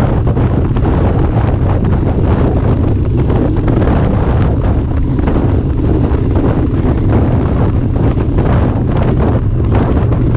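Heavy wind buffeting on the microphone of a Harley-Davidson motorcycle riding at road speed, over the low, steady drone of its engine and road noise.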